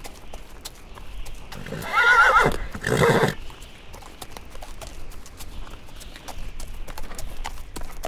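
Horses' hooves clopping in a steady scatter of clicks, with one horse whinnying with a wavering pitch about two seconds in, followed by a short noisy burst.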